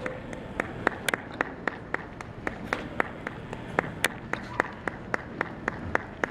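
Ringside spectators clapping in a steady rhythm, about three claps a second, as the terriers are gaited around the ring.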